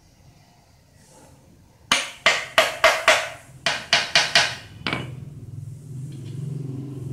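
A small hammer tapping metal on the oil pump being seated on a D15 single-cylinder diesel engine's front cover: about nine sharp, ringing taps over some three seconds, starting about two seconds in.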